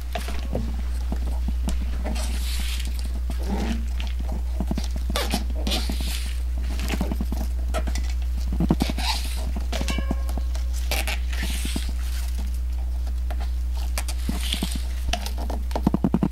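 Handlebar tape being stretched and wound around a road bike's drop bar by hand: irregular rustling and rubbing of the tape and hands, with a short squeak about ten seconds in, over a steady low hum.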